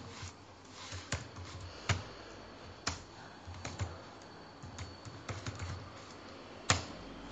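Typing on a computer keyboard: irregular keystrokes in small clusters, with one louder keystroke near the end.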